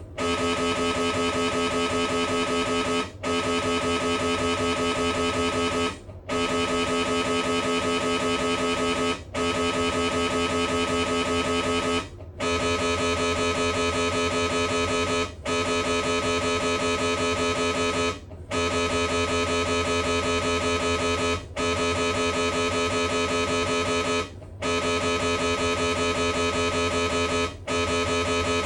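Siemens Magnetom Spectra 3-tesla MRI scanner's gradient coils running an imaging sequence: a steady buzzing drone made of several pitches at once, broken by a short gap about every three seconds.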